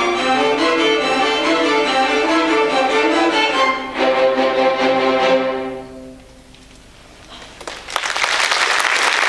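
School string orchestra of violins, cellos and basses playing the closing bars of a piece, ending on a final chord that dies away about six seconds in. After a short pause the audience starts applauding near the end.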